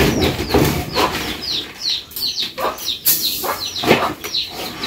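Birds chirping over and over, short high calls a couple of times a second, with irregular knocks and rustling.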